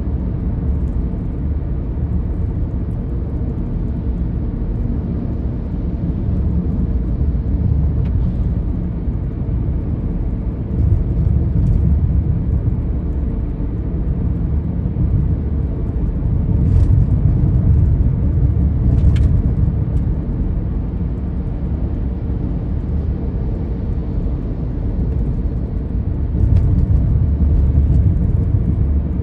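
Steady low rumble of a car being driven, engine and tyre noise heard from inside the cabin, swelling a little now and then. Two faint ticks come about two-thirds of the way in.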